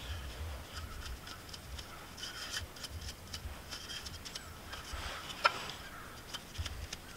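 Small metallic clicks and scrapes of pliers and gloved hands working at the wire terminals of a tractor's starter relay and solenoid, with one sharper click about five and a half seconds in.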